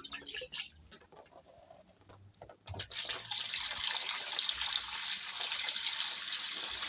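Water pouring by hand into a front-loading washing machine to fill it for the final rinse. After a few faint knocks, a steady rushing pour starts about three seconds in.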